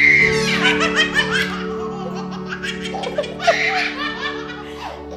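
Babies laughing in repeated belly-laugh bursts, loudest in the first second or so and then coming in smaller giggling fits.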